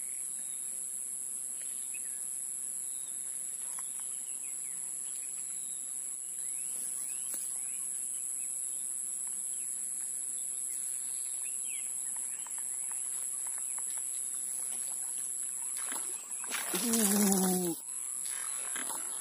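High-pitched swamp insects droning steadily in two constant tones, with faint bird chirps here and there. Near the end comes a loud sound about a second long, with a low, wavering voice-like pitch over a rushing noise.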